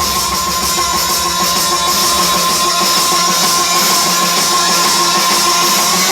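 Rock music with a long, steady electric guitar note held over the band, no singing.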